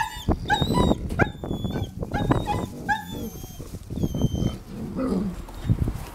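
Wolfdogs whining and yipping in excited greeting: a quick string of short, high whines with rising and falling pitch over the first three seconds and a few thinner ones around four seconds, then scuffling movement near the end.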